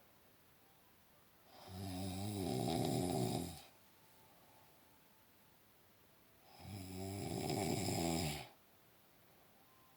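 A person snoring very loud: two long snores about five seconds apart, each lasting about two seconds, with quiet pauses between them.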